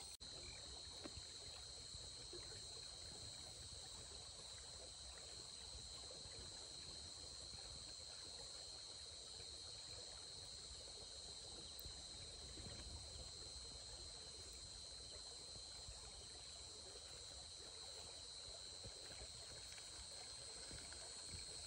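Faint riverside ambience: a steady, high-pitched insect drone over the low wash of running river water.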